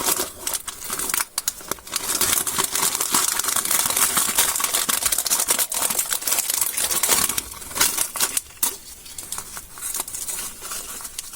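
Candy wrappers crinkling and being torn open, a dense run of crackles and sharp clicks that grows quieter about seven seconds in.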